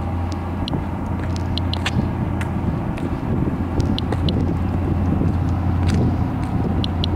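Inspector+ Geiger counter clicking at irregular intervals, roughly one or two counts a second, at a normal background dose rate of about 0.11 µSv/h. A steady low hum runs underneath.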